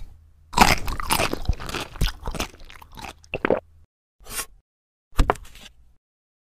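Crunchy eating sound effect: a dense run of crisp crunches and chews for about three seconds, then two short crunches near the end.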